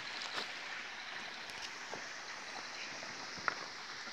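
Water of a mountain stream running steadily over rocks into a pool, an even rushing hiss with a few sharp clicks.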